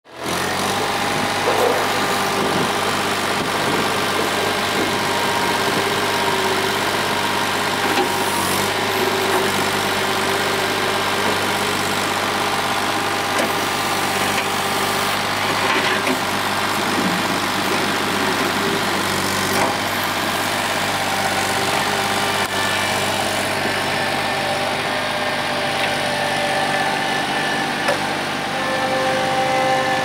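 Lynx LXD-1000T tracked mini skid steer's engine running steadily while the machine drives and turns on its rubber tracks, with a few brief knocks along the way.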